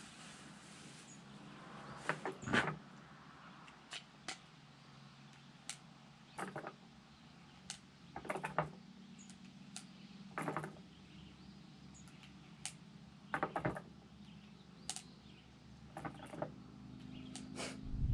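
Scattered sharp clicks and knocks at irregular intervals, a second to several seconds apart, over a faint steady background. A low rumble comes in near the end.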